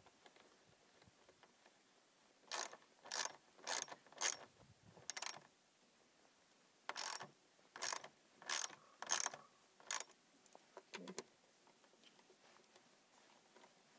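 Hand ratchet being worked in short back-and-forth strokes, the pawl clicking in two runs of about five strokes with a pause between, as it drives in the screws of the engine air filter housing cover.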